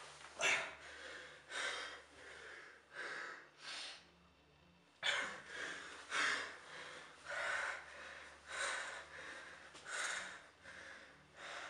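A man panting hard in ragged, gasping breaths in and out, with a short pause for breath about four seconds in.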